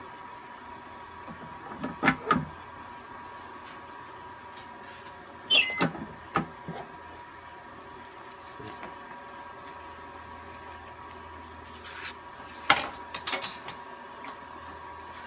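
Manual clamshell T-shirt heat press closing with a pair of knocks about two seconds in, then opening about three seconds later with a sharp clack and a short high-pitched squeal: a three-second preheat of the shirt. More knocks and handling follow near the end.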